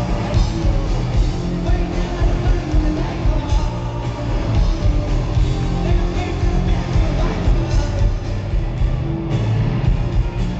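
Rock band playing live, with distorted electric guitar, bass and drums under a sung vocal.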